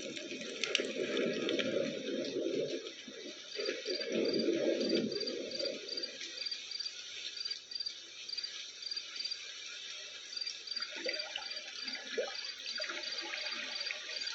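A small nature-sound speaker playing a mix of its recorded sounds: steady rain hiss with a low thunder rumble that fades out about six seconds in. Regular high chirps, like crickets, start a few seconds in and keep going.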